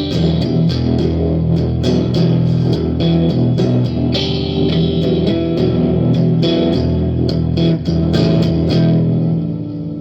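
Gretsch guitar played with quick strummed chords and picked notes, the chords ringing over one another. It starts to die away in the last second.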